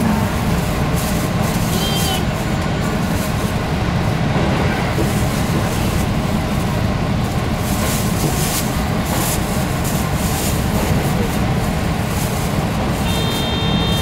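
Cabin noise of a KiHa 183 series diesel railcar running at speed: a steady low rumble of engine and wheels on rail, heard from inside the car. A short, high beeping tone sounds about a second before the end.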